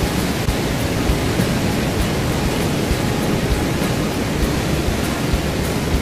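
Loud, steady rush of Haew Narok waterfall's falling water, an even noise that does not let up.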